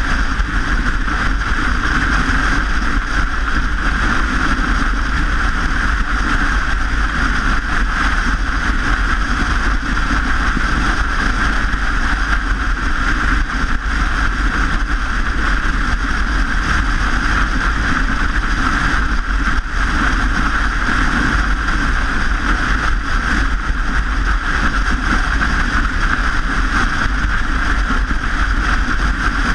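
Steady noise of riding a bike along a road: a low wind rumble on the microphone and a constant rushing road noise, unchanging throughout.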